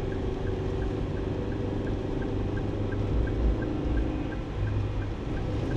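Car engine and road noise heard from inside the cabin while driving slowly, a steady low hum. A faint regular tick runs through it about three times a second.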